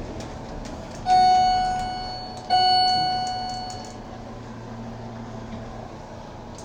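Otis elevator's arrival chime striking twice at the same pitch, about a second and a half apart, each ring fading out, over a steady low hum.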